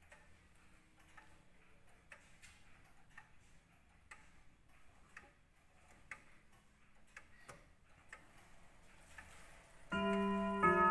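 Antique three-weight grandfather clock ticking steadily with its pendulum swinging. About a second before the end its chime starts, a loud run of bell-like notes, set off by the minute hand being turned on by hand.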